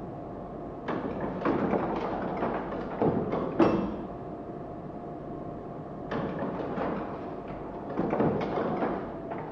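Sparse background music: irregular clusters of knocks over a faint steady drone, the loudest just over three and a half seconds in.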